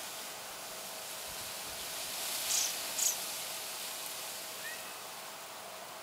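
Outdoor summer ambience with a steady high insect chirring, broken midway by two short, sharp high-pitched chirps about half a second apart and a faint short rising chirp near the end.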